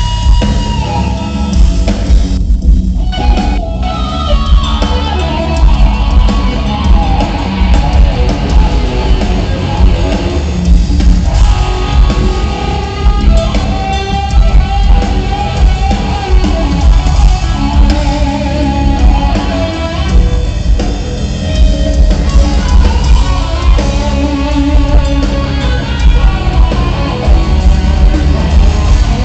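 Live rock band playing an instrumental jam: electric guitar over a drum kit, loud and continuous.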